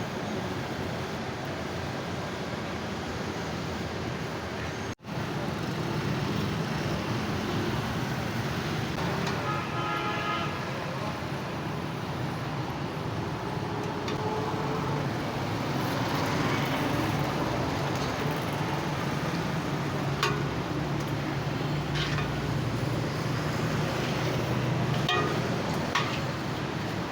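Steady roadside traffic with a short horn honk about ten seconds in and a few sharp knocks later on. The sound cuts out for an instant about five seconds in.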